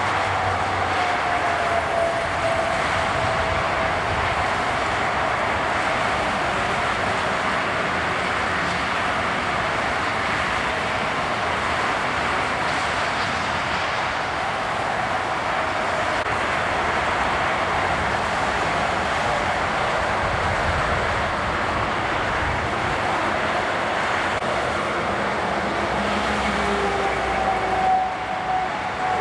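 Steady rush of road traffic noise, with a faint whine that sinks a little in pitch early on and rises again near the end.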